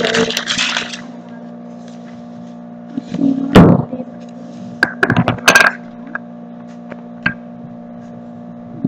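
Handling noises on a wooden table: a sheet of paper rustling as it is laid down, then a clay pot and a metal paint tin being moved and set down, with a cluster of sharp knocks and clinks about five seconds in and a single click later. A steady low hum runs underneath.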